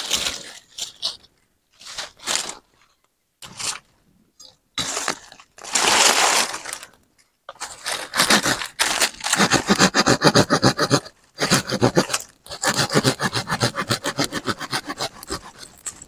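Firewood being cut with a hand saw: a few short cracks and scrapes, then two long runs of fast back-and-forth sawing strokes from about halfway through, with a short pause between them.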